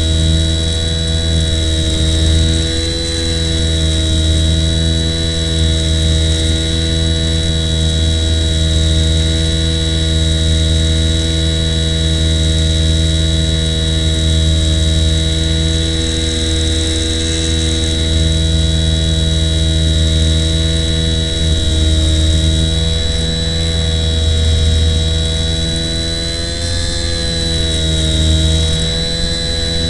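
Small electric motor of an RC plane, heard through its onboard spy camera's microphone, giving a steady droning buzz with a fixed high whine; the pitch wavers briefly near the end.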